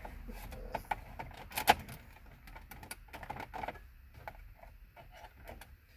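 Irregular clicks and light taps of plastic steering-column trim and small screws being handled and fitted, with one sharper click about a second and a half in.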